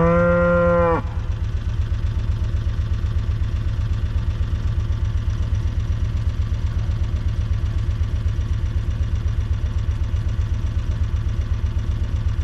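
A cow moos once for about a second, loudest at the start. Under it and after it the utility vehicle's engine idles steadily.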